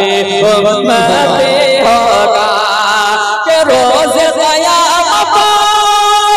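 A man singing a naat unaccompanied into a microphone over a PA: drawn-out, wavering sung notes that glide up and down in pitch.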